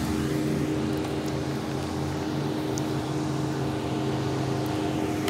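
A vehicle engine idling, a steady low hum that holds unchanged throughout.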